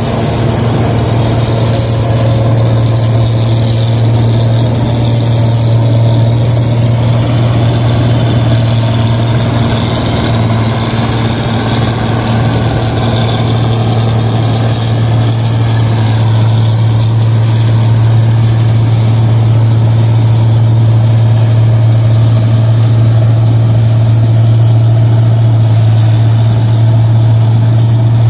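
Rice combine harvester's engine running steadily at working speed with a loud, even low hum.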